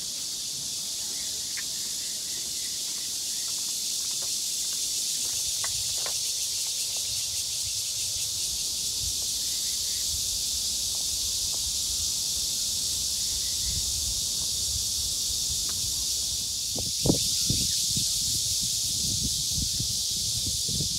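Steady high-pitched buzzing chorus of insects in the trees. A low rumble runs underneath, and there are a few sharp knocks a little before the end.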